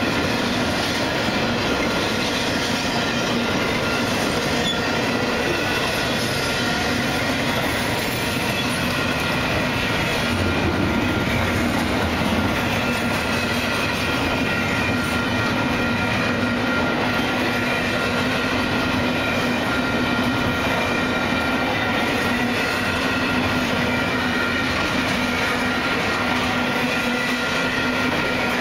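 Double-stack intermodal freight train's well cars rolling past: steady wheel-on-rail noise, with thin steady high squealing tones from the wheels.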